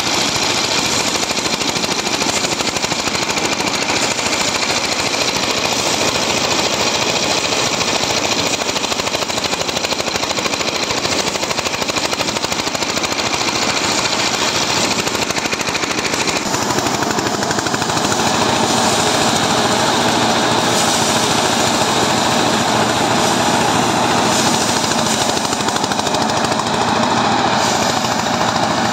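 Diesel-powered rice threshing machine running: a loud, steady, rapid clatter from the engine and the spinning wire-toothed drum as paddy sheaves are fed against it. The tone of the clatter shifts about halfway through.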